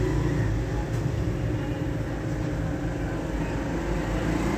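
Steady low background rumble with a faint constant hum, mechanical in character, with no distinct events.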